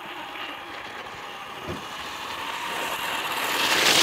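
Traxxas Stampede RC monster truck driving across an icy, slushy driveway toward the microphone. Its motor whine and tyre noise swell steadily and are loudest near the end as it reaches the microphone.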